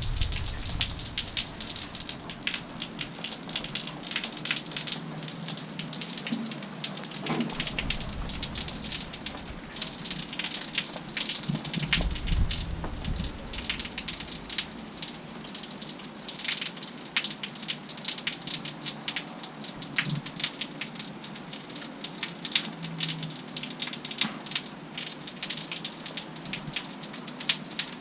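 Heavy rain falling steadily, with a dense patter of drops striking nearby surfaces. Twice, about 8 and 12 seconds in, a brief low rumble swells under the rain.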